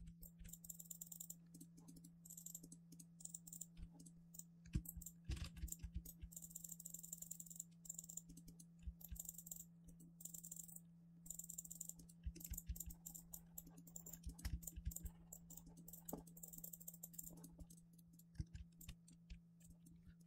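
Faint, scattered computer keyboard and mouse clicks over a steady low electrical hum.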